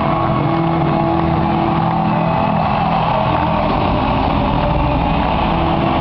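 Large arena crowd cheering over loud ring-walk music with long held low notes, a dense, steady din without let-up.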